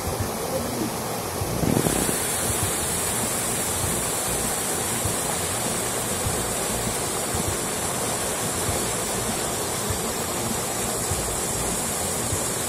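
Turbulent river water pouring over a rocky step and rushing past stones, a steady wash of water noise.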